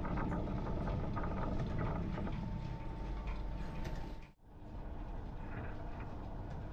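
Belt-driven Drummond lathe running through its change-wheel gear train while a boring tool cuts a 6 TPI square thread inside a leadscrew nut; a clattery gear-and-belt running sound with a thin whine in the middle. It breaks off abruptly about four seconds in, and a steadier machine running sound follows.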